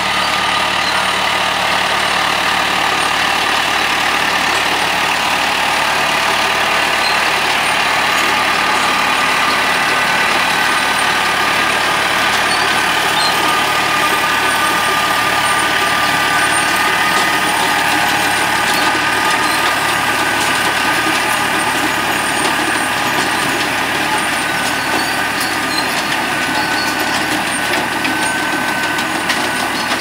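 Tractor engine running steadily while it pulls an IMAC 7580 RB40-45 potato harvester at work, a loud, even mechanical noise with faint steady whines.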